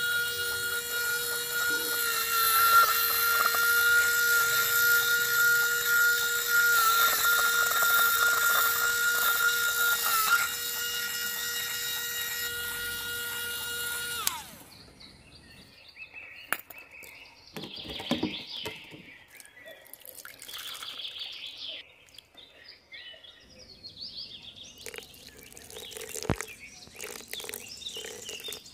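Small electric motor of a miniature DIY concrete mixer running with a steady high whine, switched off about halfway through and quickly winding down in pitch. Afterwards, scattered light clicks and scrapes as the wet cement slurry is handled and poured.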